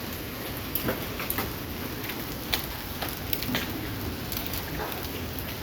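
Rain pouring steadily with irregular sharp hits of hailstones, several clear strikes among the downpour.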